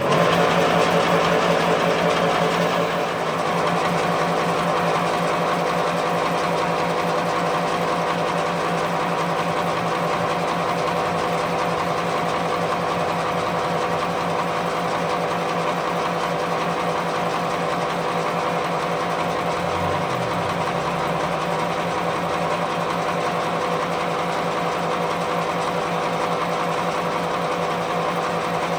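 A workshop machine running at a steady speed: a constant mechanical hum with a steady whine, a little louder for the first three seconds.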